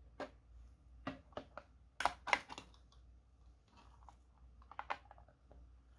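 Hard plastic clicking and tapping as 3D-printed plastic sabot parts are handled and knocked against a clear plastic tray. The clicks are irregular, with the loudest cluster about two seconds in and another near five seconds.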